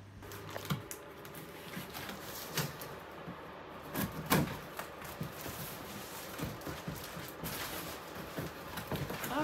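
Large cardboard box being opened by hand: scattered scrapes, rustles and knocks of cardboard flaps and packing, loudest about four seconds in.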